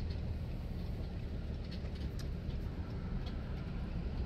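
Steady low vehicle rumble with a few faint ticks.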